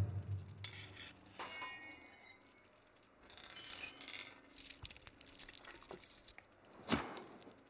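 Ribbed steel reinforcing bar clinking and ringing: short metallic strikes with a ring that dies away, a stretch of scraping, and a sharp hit near the end.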